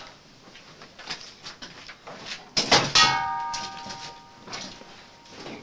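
A sudden loud metallic clang about three seconds in, ringing on with several clear tones that die away over a second or two, among a few faint knocks.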